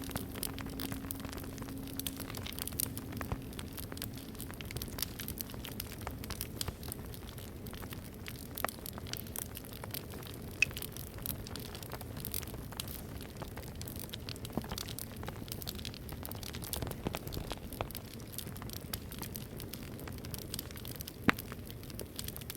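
Wood fire crackling with irregular snaps and pops, a couple of them sharper, about eleven seconds in and near the end. The low hum of a singing bowl fades out over the first few seconds.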